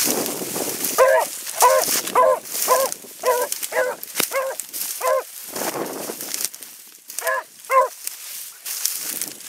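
Beagle giving tongue while trailing game through dry brush: a quick string of eight short, ringing barks about two a second, then a pause and two more near the end. Dry grass and brush rustle and crackle around the barks.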